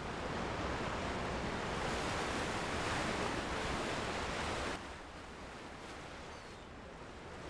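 Steady rushing of sea waves and wind, swelling slightly, then cutting off suddenly about five seconds in, leaving a much fainter steady hiss of room tone.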